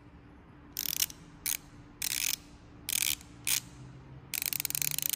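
Nepros 3/8-inch locking flex-head ratchet being swung back and forth, its pawl clicking rapidly in six short runs, the last one longer, near the end. It sounds dry: by the owner's ear it could use a little grease.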